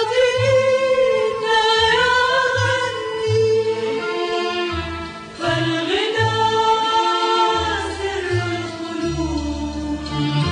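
Background choral music: voices singing long held notes over a low accompaniment, with a brief dip a little past the middle before a new phrase begins.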